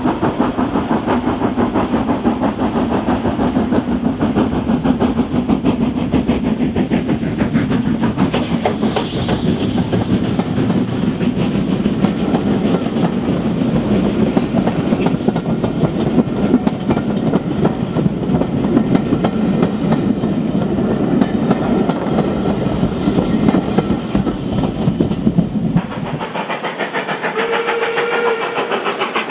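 Steam locomotive working hard as it pulls a train away, a rapid run of exhaust beats, followed by its coaches rolling close past with wheels clattering over the rail joints. About 26 seconds in the sound drops to a quieter, more distant scene with a short whistle tone near the end.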